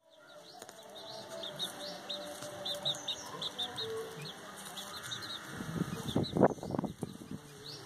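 Chicks peeping: many short, high chirps in quick succession. About six seconds in, a cluster of louder scuffing thumps and rustles, the loudest sound, cuts across them.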